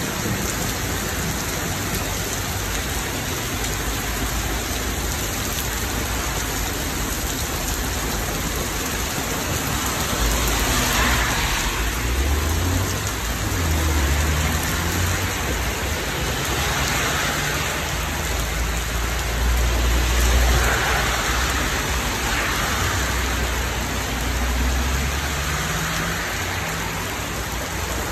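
Heavy rain pouring steadily onto a street and tree leaves, with a deep low rumble that swells up about a third of the way in and comes and goes in waves through the rest.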